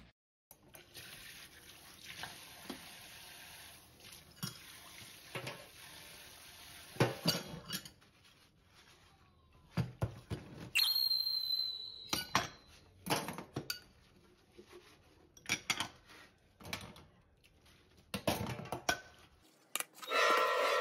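Dishes being washed by hand in a stainless-steel sink: ceramic bowls and plates clinking and knocking against each other at irregular moments, with water noise.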